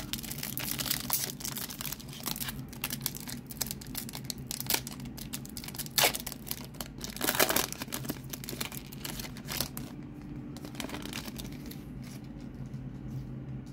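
Foil booster-pack wrapper crinkling and tearing open by hand, with louder rips about six seconds in and again a second or so later, then softer rustling as the cards are handled.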